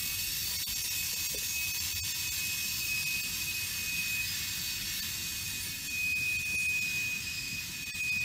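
Freight cars rolling past on the track, covered hoppers and then empty intermodal well cars, giving a steady rush of steel wheels on rail with a few light clicks. A thin, steady high-pitched squeal comes in faintly and grows stronger about six seconds in.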